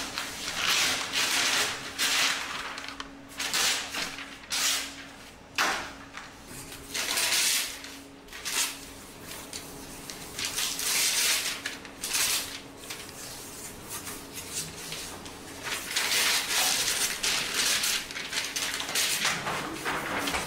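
Large sheets of drawing paper rustling and crumpling as they are handled and thrown, in irregular bursts of noise, over a faint steady hum.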